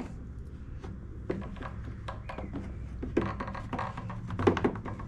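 Scattered light clicks and knocks of hands and a tool working a rubber fuel line through a grommet in a backpack blower's plastic housing, with a louder knock about four and a half seconds in, over a steady low hum.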